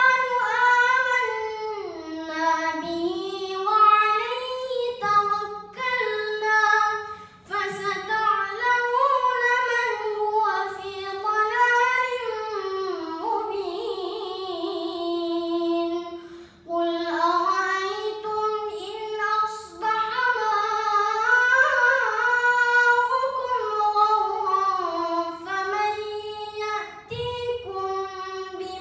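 A boy's melodic Quran recitation in the tilawah style: a high voice drawing out long ornamented phrases that rise and fall in pitch. Short pauses for breath come about a quarter of the way in, just past halfway, and near the end.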